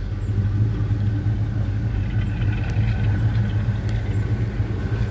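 A vehicle engine idling steadily, a low even hum that does not change.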